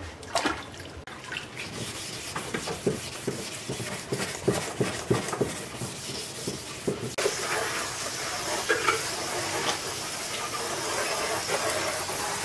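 Hand wet-sanding of a car bumper with 400-grit paper: a run of short, irregular rubbing strokes. About seven seconds in, a garden hose starts spraying water over the bumper with a steady hiss.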